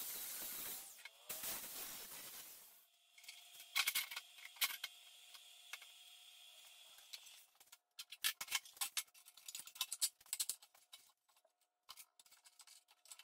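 Arc welding on steel, the arc sizzling in two short runs that end about three seconds in. Then come scattered clinks and knocks of steel pieces being handled on a metal table, with a faint steady hum behind.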